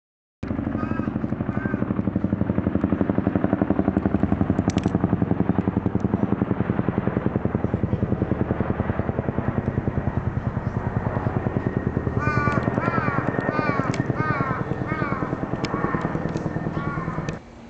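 Low mechanical drone with a fast, even pulsing throughout, that starts abruptly and cuts off abruptly. From about twelve seconds in, a run of short, repeated high chirps sounds over it.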